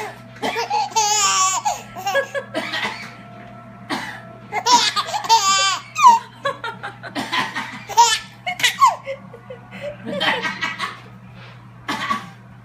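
A baby laughing in repeated bouts of belly laughter, set off by someone coughing. Short sudden coughs come between the bouts.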